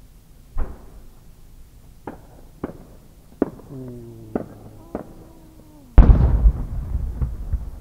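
Several sharp pops, then about six seconds in one heavy boom from a large 30 cm (shakudama) aerial firework shell bursting, trailing off in a long rolling echo. A held tone that slides slightly down sounds in the middle, before the boom.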